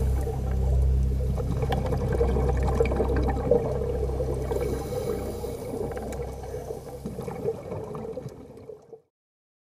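Underwater ambience picked up through a dive camera's housing: a steady low hum with watery gurgling and scattered clicks, fading out to silence about nine seconds in.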